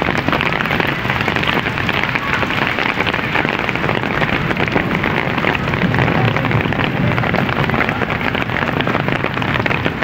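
Rain falling steadily, a dense, even patter of drops.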